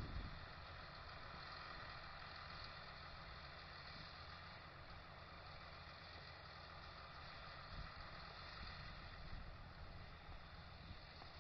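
Faint, steady running of a farm tractor's engine, heard under an even hiss.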